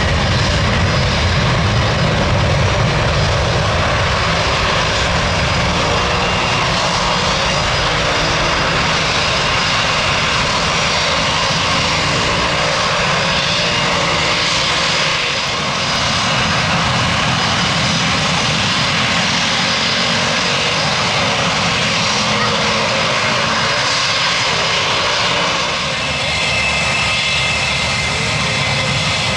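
Airbus A300-600ST Beluga's twin General Electric CF6-80C2 turbofans, a steady loud jet noise on departure. About 26 s in the sound changes to a Beechcraft D18S's twin Pratt & Whitney R-985 radial piston engines, with steady higher tones.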